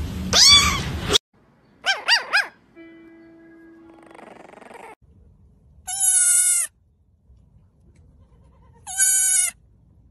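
A kitten meows for about the first second. After a gap and a few brief unclear squeaks and a steady tone, a goat kid gives two short, high, wavering bleats about three seconds apart.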